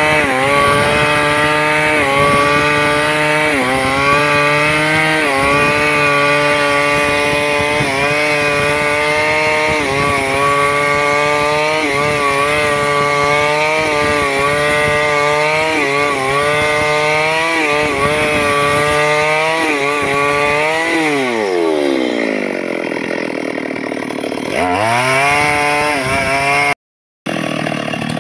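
Stihl MS 382 two-stroke chainsaw ripping a log lengthwise at full throttle, its pitch dipping and recovering again and again as the chain bites into the wood. About three-quarters through, the throttle is released and the engine falls to idle, then revs up again briefly.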